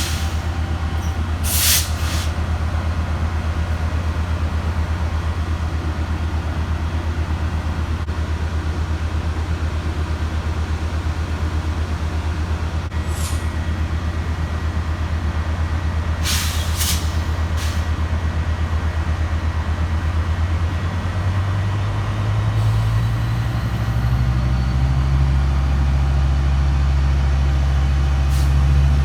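Diesel passenger locomotive idling with a steady low drone, with short air hisses from the brakes about two seconds in and again around sixteen seconds in. After about twenty seconds the engine revs up, its note stepping higher and louder, as the train throttles up.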